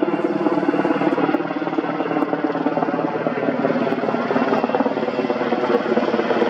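Sikorsky UH-60 Black Hawk firefighting helicopter with a belly water tank flying low overhead: the loud, steady, rapid beating of its main rotor.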